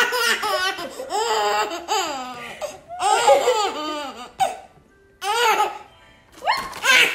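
A baby laughing hard, in several bursts of rapid, high-pitched belly laughs with brief pauses for breath between them.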